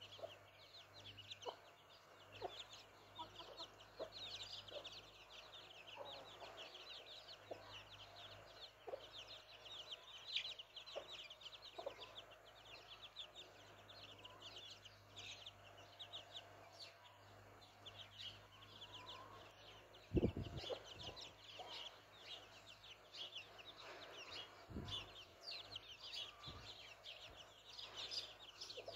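A brood of chicks peeping continuously in short, high, falling notes, several a second, while the mother hen clucks softly now and then. A sudden low thump comes about twenty seconds in, with a smaller one a few seconds later.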